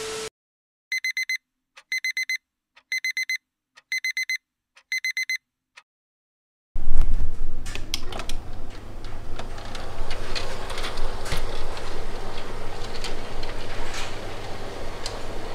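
Digital alarm clock beeping: five quick groups of short, high beeps, about one group a second. After a brief silence, a motorised window curtain runs along its track with a steady low hum and light clicking.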